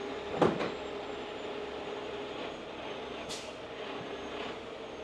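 A 50-ton rotator tow truck's engine and hydraulic winch running steadily as it cables in, a steady drone with a held whine. A brief sharp noise comes about half a second in, and a short hiss just after three seconds.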